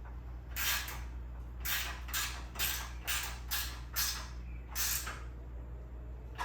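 About eight short creaking, scraping strokes, irregular at roughly two a second, as the fasteners on a DeWalt miter saw stand's mounting brackets are tightened down until snug.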